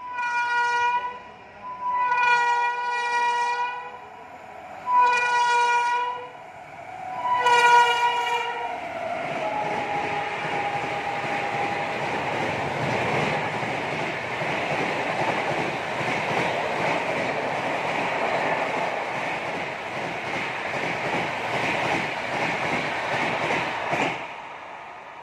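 Locomotive horn of the Jaynagar–Amritsar Clone Humsafar Express sounding four blasts, the second the longest. Then the train's coaches run through at high speed with a steady rumble and wheel clatter that cuts off sharply near the end as the last coach clears.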